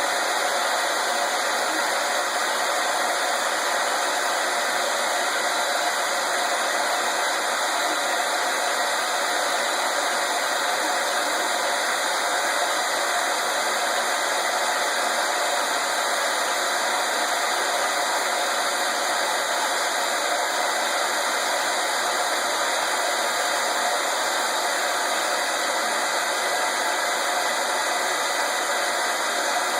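Hair dryer running steadily on one setting, a constant whooshing rush of fan and blown air with no change in level.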